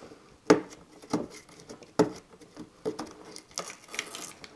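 Plastic handling noise from an acrylic laser-shield panel and its peel-off protective film: sharp clicks about once a second, then lighter crinkling clicks near the end.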